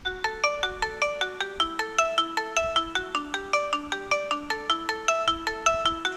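A MIUI 12 phone ringtone playing: a quick repeating melody of short pitched notes, each dying away, starting suddenly after silence.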